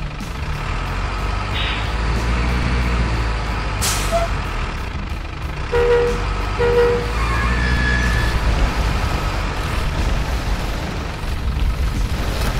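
Simulated diesel truck sound for an RC cement-mixer truck: a steady engine rumble, an air-brake hiss about four seconds in, and two short beeps around six seconds. Water splashes near the end as the truck topples into the pond.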